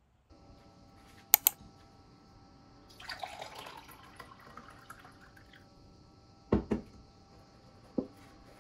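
Cold brew coffee poured from a French press into a glass, a trickling pour lasting about two seconds. Before it come two sharp clicks, and after it two knocks and then one more, as things are set down on the counter.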